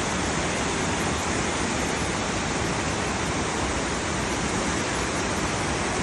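Whangarei Falls' water falling in a steady, unbroken rush.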